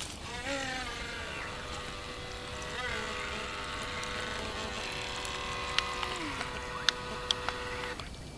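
Small electric motor of an RC boat whining as it runs across the water. The pitch climbs as the throttle opens about half a second in, dips briefly near three seconds, then holds steady until it stops near the end. A few sharp clicks come in the last seconds.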